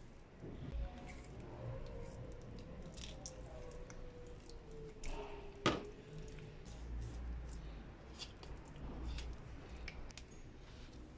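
Raw chicken wing being deboned by hand with a small knife: faint wet squishing of skin and meat with small clicks, and one sharper click about halfway through.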